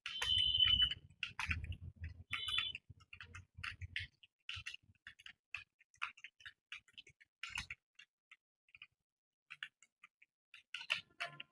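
Computer keyboard being typed on at an unhurried pace: irregular key clicks, several a second. For the first four seconds a low rumble runs underneath.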